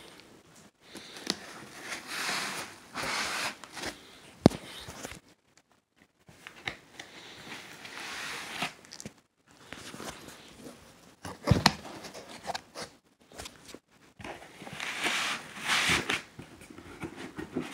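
Cardboard box and foam packing being handled: irregular rustling and scraping as the packing is worked loose around the boxed player. There are two sharp knocks, one about four seconds in and one near the twelve-second mark.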